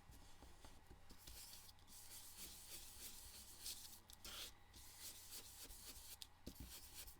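Faint, soft swishing strokes of ink being brushed onto card, repeated irregularly with short pauses between strokes.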